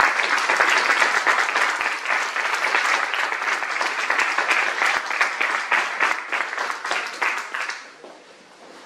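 Audience applauding, a dense patter of many hands clapping that dies away about eight seconds in.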